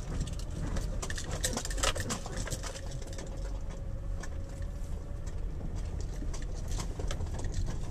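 A car running: steady low engine and road rumble, with scattered light clicks and rattles and a faint steady hum that fades after about five seconds.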